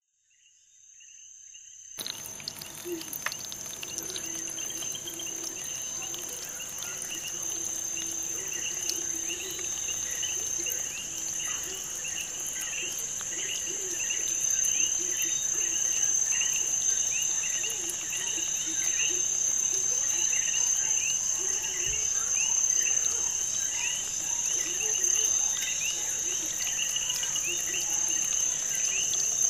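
Insect chorus: a steady high-pitched cricket-like drone with many short falling chirps repeating over it. It fades in over the first two seconds.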